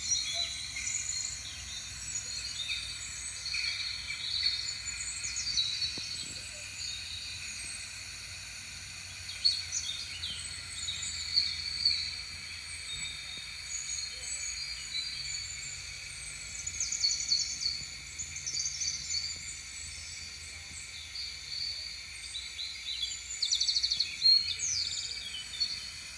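Many small birds chirping and twittering together, with short quick notes throughout and a fast trill near the end, over a steady low hum.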